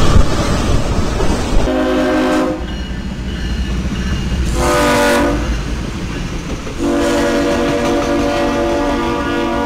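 Train air horn sounding a chord of several notes: two short blasts about two seconds apart, then a long blast that starts about seven seconds in and is still held at the end, over the low rumble of the passing train.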